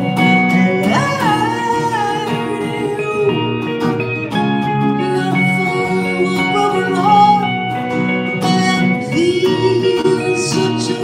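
Live acoustic music: guitar chords strummed or picked steadily, with a solo voice singing a sliding melodic line over them about a second in and again later.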